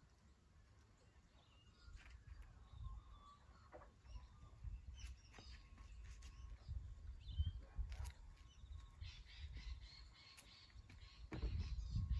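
Faint outdoor ambience: scattered bird chirps and calls, busier near the end, over an uneven low rumble.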